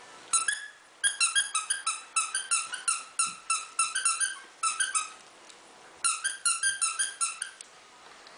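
A squeaky plush toy squeaking over and over, about four short, high squeaks a second, in three runs with brief pauses between.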